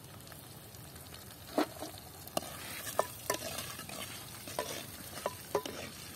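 Tempering of curry leaves, dried red chillies and mustard seeds frying in hot coconut oil as it is stirred. A steady sizzle runs throughout, and from about a second and a half in there is a string of sharp pops and clicks.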